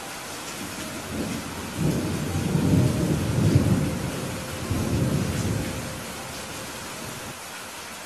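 Thunderstorm: steady rain hissing, with a long roll of thunder that swells about a second in, rumbles for several seconds and dies away near six seconds in.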